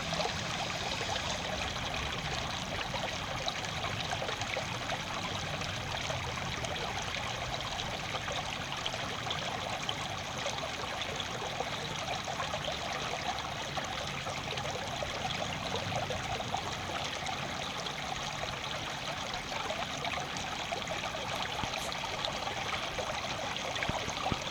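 Water running steadily, a continuous flowing and trickling hiss.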